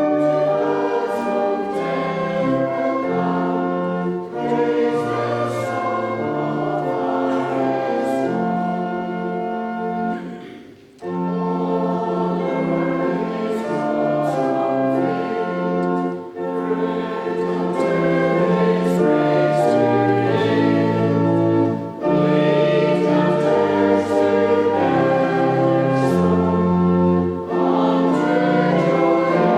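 Voices singing a hymn together with an organ accompaniment, in held chords that change from note to note. There is a brief break about ten seconds in, between lines.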